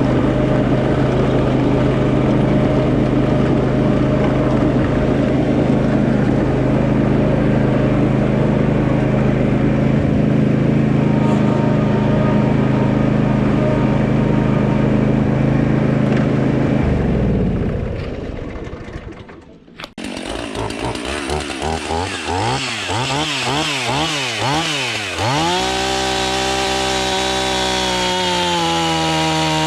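A steady low engine drone fades out; then a Husqvarna 450 Rancher 50cc two-stroke chainsaw is revved up and down in quick blips several times and, about two-thirds of the way in, held at high, steady full throttle.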